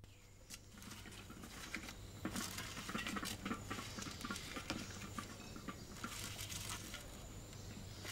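Paper banknotes rustling and crinkling as they are handled and counted, a dense patter of small crackles and clicks that builds about a second in.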